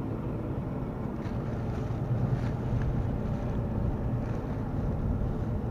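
Steady low rumble of wind buffeting the microphone over a faint, even engine hum.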